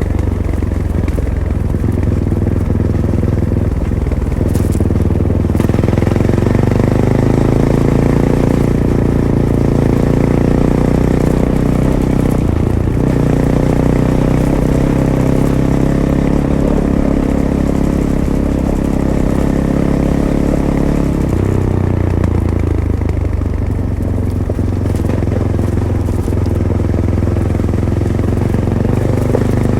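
Fantic Caballero 500's single-cylinder engine running through its stock Arrow exhaust while riding, heard from the rider's position. The engine note changes pitch twice, about twelve seconds in and again about twenty-one seconds in.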